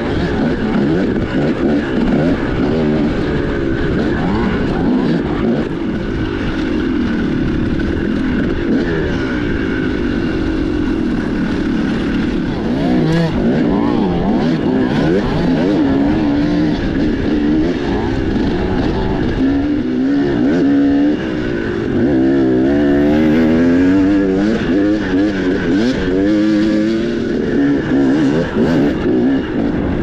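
Dirt bike engine being ridden hard over rough trail, its revs rising and falling again and again as the throttle is worked.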